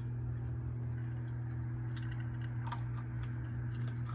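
A raccoon chewing dry cat food, faint scattered crunches and clicks, over a steady low hum.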